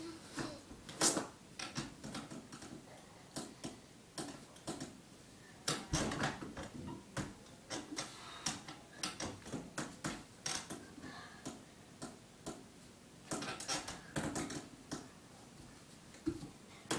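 Irregular clicks, taps and small bumps as a child climbs over a doorway pull-up bar: hands and body shifting on the bar and bare feet knocking the closet doors, with a couple of heavier thumps.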